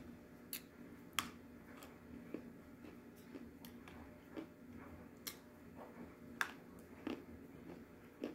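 A person chewing crunchy edible clay with the mouth closed: irregular crisp crunches and clicks, roughly one every half second to second.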